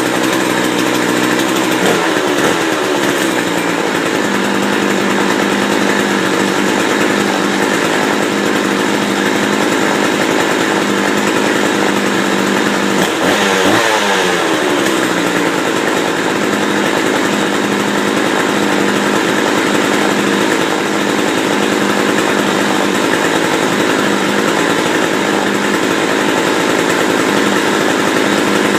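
McCulloch 3214 two-stroke chainsaw engine running steadily after a cold start, without bar and chain, its speed briefly dipping and recovering about two seconds in and again about thirteen seconds in. The owner finds it running a little rich on its current carburettor setting.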